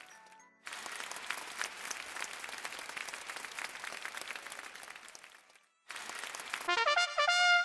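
Applause sound effect: dense clapping that stops twice, briefly near the start and again just before the last two seconds. Near the end a short pitched jingle of stepped notes cuts in.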